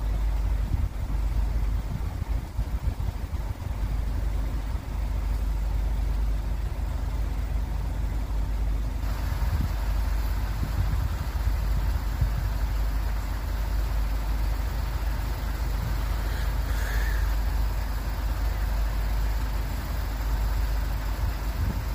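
Road traffic: a steady low rumble of vehicles, with a louder hiss of tyres coming in about nine seconds in.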